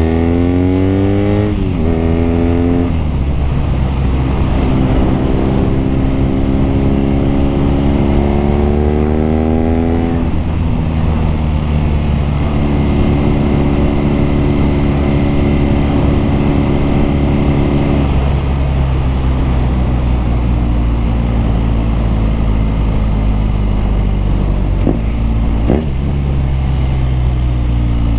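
BMW R nineT's air-cooled boxer-twin engine and exhaust under way: it accelerates through quick gear changes in the first few seconds, then pulls steadily up in revs and holds a steady cruise. Two short sharp clicks come a little before the end, and the revs fall off as it slows at the close.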